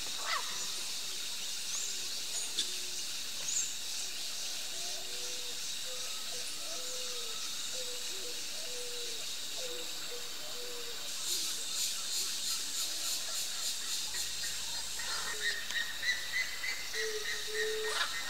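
Wild riverside soundscape: a steady high drone of insects with scattered bird calls, including short low notes. From about eleven seconds in, a fast rattling series of clicks joins in, and near the end a long held whistle.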